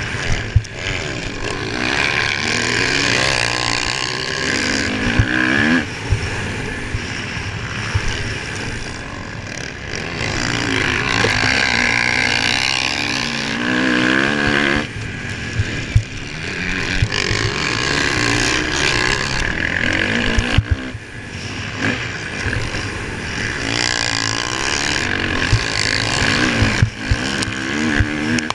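Motocross dirt bike engine heard from on board, revving up in rising surges that cut off sharply every few seconds as the throttle is chopped. Sharp knocks are heard several times as the bike hits bumps and lands jumps.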